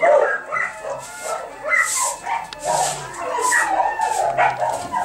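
A chorus of many dogs barking and yelping at once, the calls overlapping without a break.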